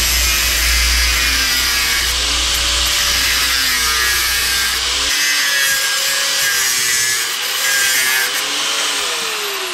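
Angle grinder cutting through steel frame tubing. The motor's pitch sags and rises as the disc bites, then starts to fall near the end.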